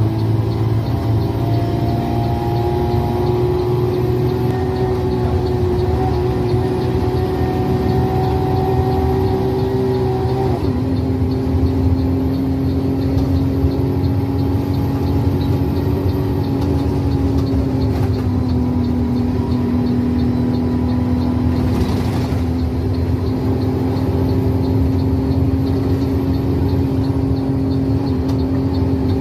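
Intercity bus engine running steadily, heard from inside the bus; its pitch drops about ten seconds in and then holds. A faint, even ticking runs beneath it, and a short burst of hiss comes about two-thirds of the way through.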